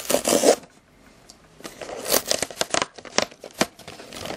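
Small paperboard box being torn open by hand: a short rip at the start, then, after a brief pause, a run of tearing and crinkling with sharp clicks.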